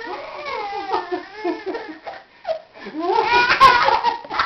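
A baby giggling and laughing in short bursts, loudest and highest-pitched about three to four seconds in.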